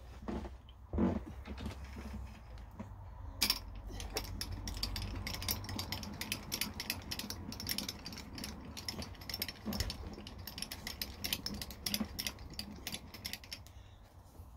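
Mini mill running with a small drill cutting into a thin copper tube. A low motor hum, a couple of knocks in the first second or so, then from a few seconds in a rapid, irregular ticking as the drill bites into the copper, thinning out near the end.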